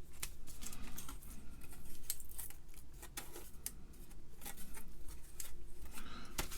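Irregular small clicks and taps from handling a plastic DIP TTL chip and the circuit board while seating the chip in its holes, over a faint steady hum.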